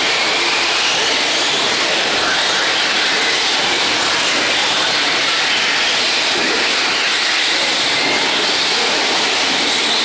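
Radio-controlled trucks racing on a dirt track: a steady loud rushing noise, with faint high motor whines gliding up and down as they speed up and slow down.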